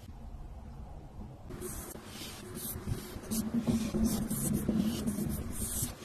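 Fineliner pen drawing lines on paper: a quick run of short scratchy strokes, starting about a second and a half in.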